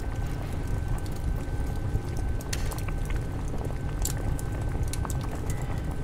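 Water boiling in a pot: a steady low bubbling rumble with scattered sharp pops, over a faint steady high tone.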